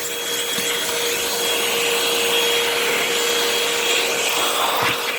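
Hoover WindTunnel High Capacity Pet upright vacuum motor running steadily with a constant whine while a clog, likely a piece of paper, blocks its airpath and has set off its check indicator.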